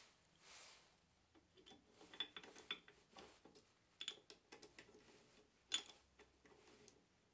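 Faint, scattered metallic clicks and ticks of an Allen key and an aluminium block being handled and screwed onto a ball-screw linear stage carriage, with one sharper click near the end.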